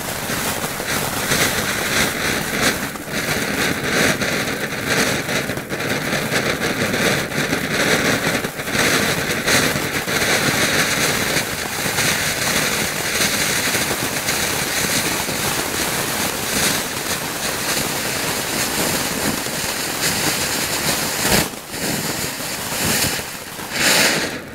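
Nico Riesenfontäne (giant firework fountain) spraying sparks with a steady loud hiss and scattered crackles, burning out suddenly at the very end.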